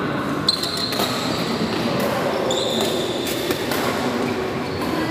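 Badminton rally: sharp racket hits on the shuttlecock several times, with brief shoe squeaks on the court floor, over a steady background of hall noise.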